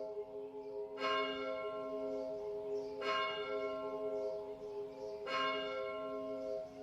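Bell-like chime tones, a chord struck about every two seconds and left ringing, as a music track's intro.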